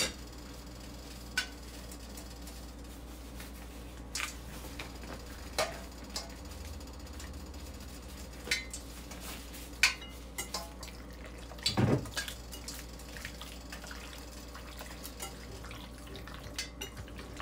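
Scattered clinks and knocks of dishes and utensils being handled on a kitchen counter, with one heavier thud about twelve seconds in, over a steady low hum. Near the end, light ticks as a gloved hand mixes egg-coated chicken pieces in a glass bowl.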